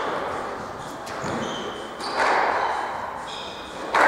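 Squash rally on a wooden court: the ball is struck and hits the walls with sudden echoing smacks about two seconds in and again near the end, and shoes squeak briefly on the floor in between.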